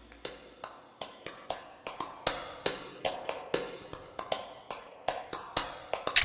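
Countdown timer sound effect: a run of sharp, dry ticks, about three or four a second.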